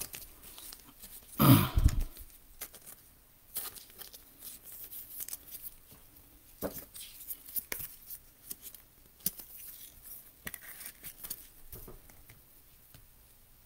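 Plastic wrappers of basketball trading-card packs crinkling and tearing as they are pulled open and the cards slid out, with scattered light rustles and clicks of card handling. One brief, louder rip comes about a second and a half in.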